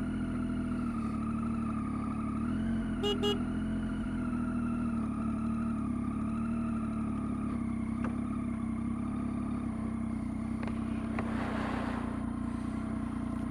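Triumph Tiger 800 XCx's three-cylinder engine running steadily as the motorcycle rolls slowly along, with two short beeps about three seconds in.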